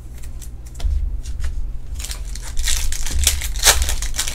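Foil trading-card pack wrapper crinkling and tearing as it is pulled open by hand, a run of sharp crackles that grows loudest in the second half, over low bumps of handling.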